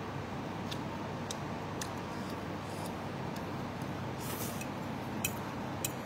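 A metal fork clicking lightly against a bowl a few times while noodles are eaten, over a steady background noise, with a brief hiss about four seconds in.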